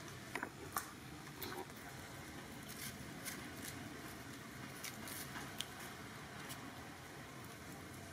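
Scattered faint crackles and clicks of dry leaves and crumbly soil under a baby macaque's hands and feet as it crawls, over a steady low background hiss.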